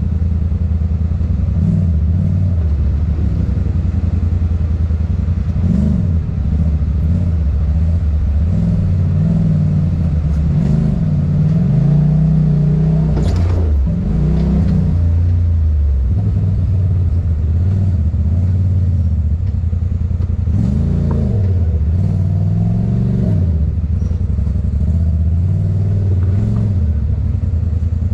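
Side-by-side UTV engine running under load, its revs repeatedly rising and falling as it crawls over ruts and rocks, with one sharp knock about halfway through.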